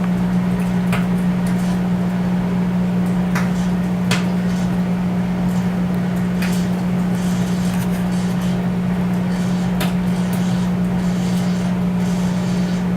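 Microwave oven running on high with a steady low hum, with a few sharp pops scattered through it.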